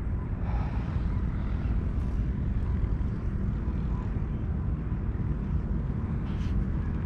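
Steady low rumbling background noise with no distinct events, the kind of outdoor rumble an action-camera microphone picks up.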